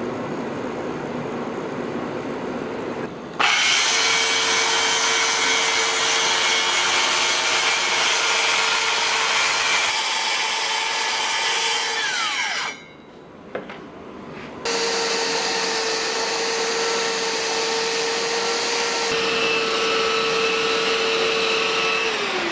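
Cordless DeWalt circular saw on a guide rail cutting through an ash butcher block, a steady whine that spins down with falling pitch about 12 seconds in. After a short pause a corded power sander runs on the wood, spinning down near the end. The first few seconds hold a softer rubbing noise.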